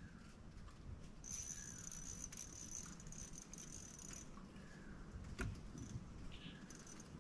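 Insects buzzing in the riverside vegetation: a high, steady insect call sets in about a second in and stops about three seconds later, with shorter calls elsewhere. A low rumble runs underneath, and there is a single sharp click about five seconds in.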